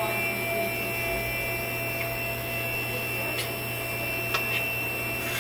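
Stepper motor driving the CNC 3020 router's Y-axis ball screw at a steady feed rate: a steady whine of fixed pitch over a low hum, with a couple of light ticks.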